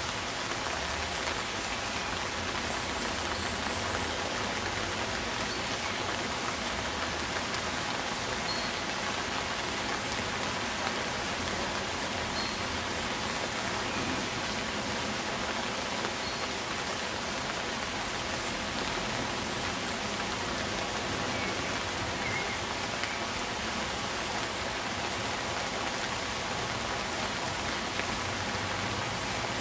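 Rain falling steadily: an even hiss of drops that does not let up.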